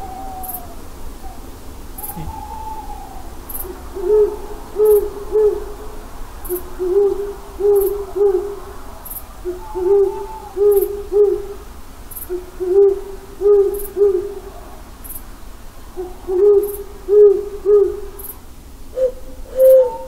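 Owl hooting: low hoots in runs of three, a run about every three seconds, with a few higher wavering calls between them. Near the end a longer, steadier call comes in.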